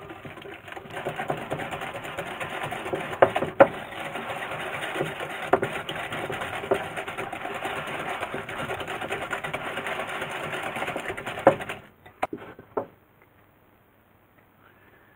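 Wire balloon whisk beaten fast in a glass bowl through a butter, sugar and egg mixture: a quick, steady clatter of scraping and clicking with a few sharp knocks, stopping about twelve seconds in, followed by a couple of taps.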